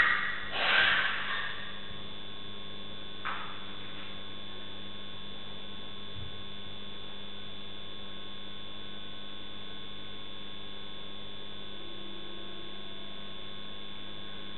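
Steady electrical hum of a CCTV camera's audio with a faint hiss. About a second in there is a short loud noise, and a brief fainter one a couple of seconds later; after that only the hum remains.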